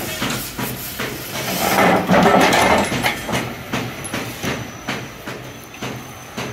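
Gas cutting torch hissing as it cuts through a steel truck chassis, swelling louder for about a second near the middle, with a steady run of metal knocks about two or three a second.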